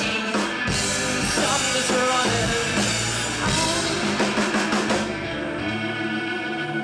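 Live rock band of two electric guitars, electric bass and drum kit playing out the end of a song without vocals. About five seconds in the drums and cymbals stop, leaving a held chord ringing.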